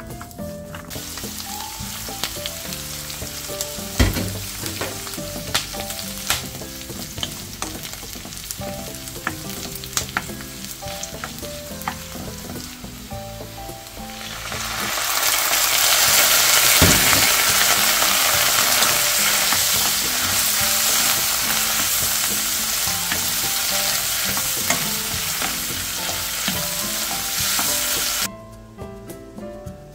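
Garlic scapes and dried shrimp stir-frying in a nonstick wok, with a wooden spatula stirring and a few sharp knocks against the pan. About halfway through, soy sauce hits the hot pan and the sizzle becomes much louder and hissier, then cuts off suddenly near the end.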